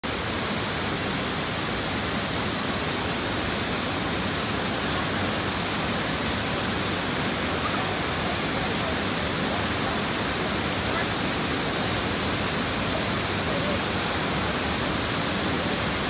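A waterfall pouring into a pool: a loud, steady, unbroken rush of falling water.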